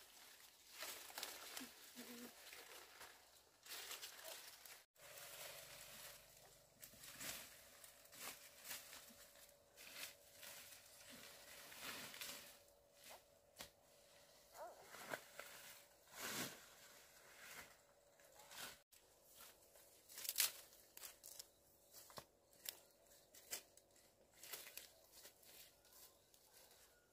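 Faint, irregular rustling and crackling, like material being handled or torn, with a faint steady hum underneath from about five seconds in.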